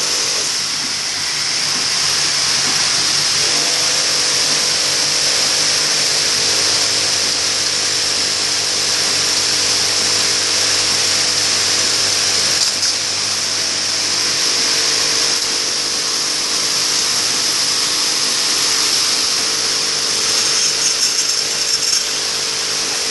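Coil nail welding machine running continuously: a steady mechanical hum under a strong, even high hiss, with no pauses.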